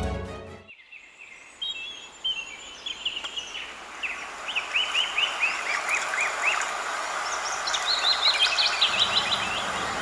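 Birds chirping in runs of quick, falling notes over a steady outdoor hiss. Background music fades out in the first second.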